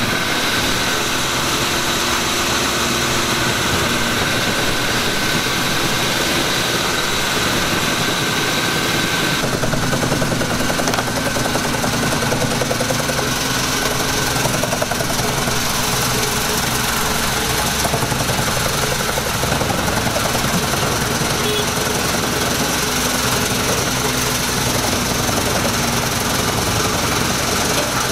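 Fiat 140-90 tractor's diesel engine running under load, driving a Pezzolato PTH 500 wood chipper through the PTO as the chipper chews eucalyptus branches. The steady, loud machine din changes in tone about nine seconds in.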